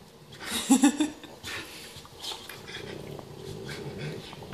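A Great Dane and a Boxer play-fighting: a short, loud, wavering growl about a second in, then quieter, low grumbling growls with a few faint clicks.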